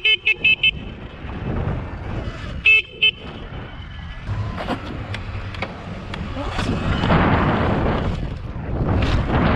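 Electric dirt bike's horn beeped in a quick string of short toots, then twice more about three seconds in. A rushing noise builds over the last few seconds.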